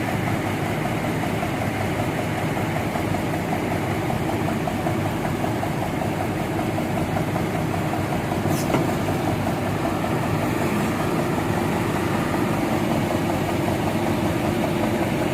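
Heavy engine running steadily at a low, even pitch, with one sharp click a little past halfway.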